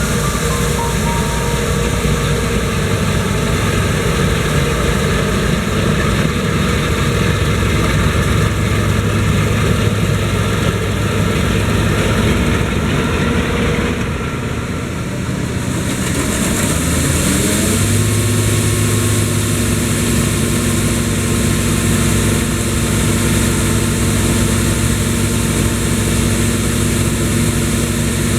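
Claas Tucano 430 combine harvester running steadily. Just past halfway the sound dips briefly, then the engine pitch rises and settles at a higher, steady note.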